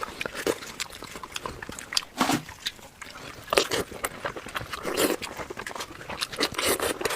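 Close-up chewing and lip-smacking of someone eating, many short wet smacks and clicks in quick succession, the audio sped up.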